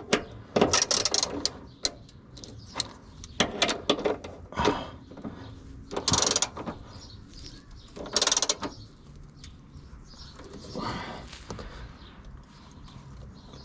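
Ratchet wrench clicking in about six short bursts of rapid ticks as the lower control arm bolts are run in and tightened until they are good and tight.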